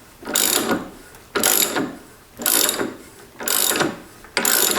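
Socket ratchet clicking in repeated strokes, about one a second, as a 1 1/4 inch socket backs a nut off gummed-up, dirty threads on a lathe shaft.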